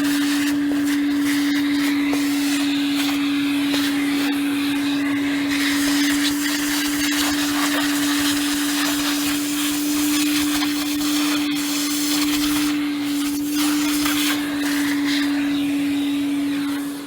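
A vacuum cleaner running steadily while it sucks wood chips and dust off a freshly CNC-carved board, with small chips rattling and clicking up the nozzle. It gets quieter near the end, when the nozzle comes away.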